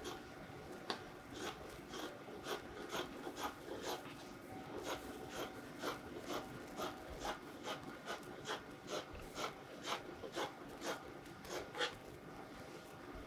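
Tailor's scissors snipping through Ankara wax-print cotton fabric in a steady run of cuts, about two a second, over a faint steady hum.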